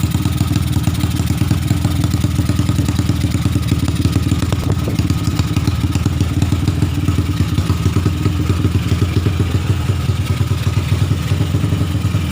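Honda Tiger single-cylinder four-stroke motorcycle engine, bored out with a 66 mm piston, running steadily at a fast, even idle with no revving. The uploader calls the engine 'jebol', broken.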